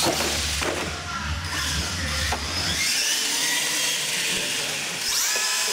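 Radio-controlled monster truck's motor and gears whining as it speeds up and slows, the pitch rising and falling, with music playing in the background for the first half.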